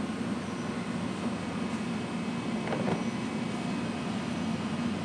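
Steady low mechanical hum over outdoor background noise, with a faint knock about three seconds in.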